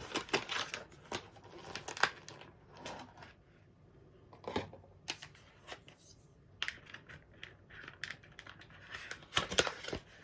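Product packaging being handled as a small charger is taken out of its box: irregular light clicks, taps and rustles, with a short pause a few seconds in.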